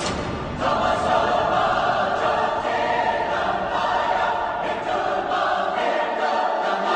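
Soundtrack music of choral voices singing long held chords that change every second or two.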